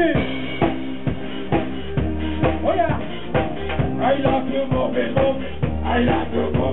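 Live band playing: a drum kit keeps a steady beat over a bass line, with a voice on a microphone over it at moments.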